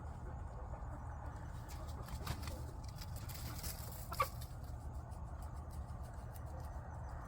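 Backyard chickens clucking, with a short louder call about four seconds in. Scattered clicks and rustles of the birds scratching through pine shavings run over a steady low hum.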